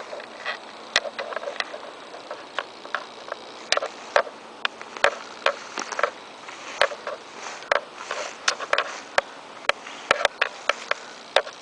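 A run of sharp, irregular clicks and snaps, a few per second, over a faint steady hum.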